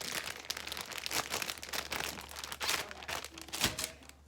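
Plastic bag crinkling and rustling as it is handled: a dense run of sharp crackles, the loudest a little over three and a half seconds in.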